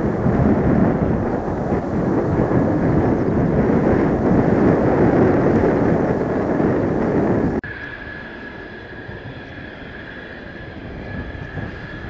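Mitsubishi F-2 fighter's jet engine rumbling loudly as the jet climbs away after takeoff. About seven and a half seconds in it cuts abruptly to a quieter, steady jet engine whine with a high tone, from an F-2 taxiing on the runway.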